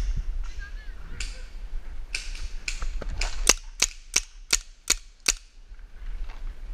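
Paintball marker firing a rapid string of about ten sharp pops, the last six loud and evenly spaced at about three shots a second, then stopping.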